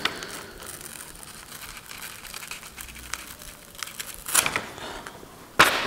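A paper sheet rustling and crinkling as it is handled, with a louder crinkle about four and a half seconds in and another just before the end.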